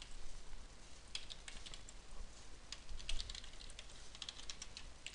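Typing on a computer keyboard: short runs of quick keystrokes with pauses between the runs.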